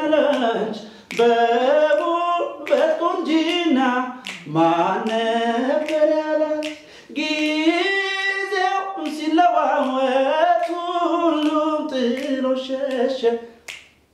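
A man singing an Amharic song unaccompanied, holding long notes that waver in pitch, with short breaks for breath about a second in and near the middle.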